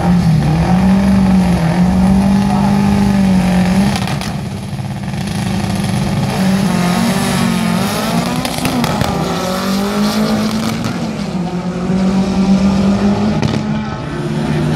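Two Volkswagen Beetle drag cars revving their engines at the starting line, the pitch rising and falling, then launching and running away down the drag strip in the second half.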